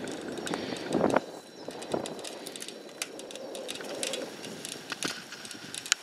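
Mountain bikes on a stony grass slope: scattered clicks, knocks and rattles of wheels, chain and frame over rocks, with a louder clatter about a second in.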